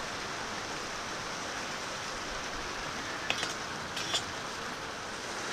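Steady, even hiss of water, from rain and running creek water, with two faint clicks about three and four seconds in.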